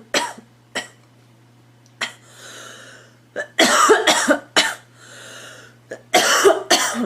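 A girl coughing in fits: a few single coughs at first, then a run of several coughs in quick succession about halfway through and another run near the end, with audible breaths drawn in between the fits.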